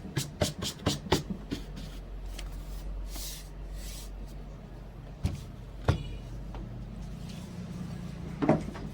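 A quick run of small sharp clicks and taps, then a few single knocks, from hands and tools working on a MacBook Pro during a battery replacement, over a steady low hum.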